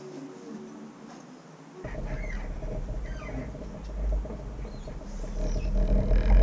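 Bird-like chirps and squeaks over a low rumble that starts suddenly about two seconds in, with a steady hum underneath.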